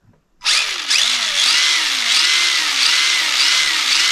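Tamiya Torque-Tuned brushed motor and 4WD gear drivetrain of an MF-01X RC car whining, starting about half a second in. The throttle is blipped repeatedly, so the pitch rises and falls over and over, about every half second.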